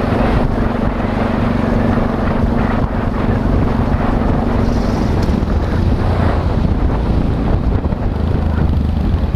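Motorcycle engine running at road speed under heavy wind buffeting on the camera microphone. A steady higher engine note gives way to a lower one about five seconds in.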